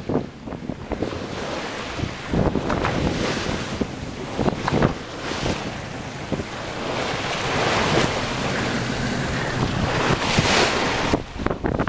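Bow wave rushing and splashing along the hull of a Barbican 33 sailing yacht beating to windward, with wind buffeting the microphone in gusts. The water noise grows heavier past the middle.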